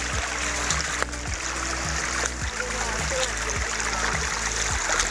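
Shallow stream running over a flat rock bed, a steady rushing trickle of water, with soft low thumps about twice a second from footsteps on the rock.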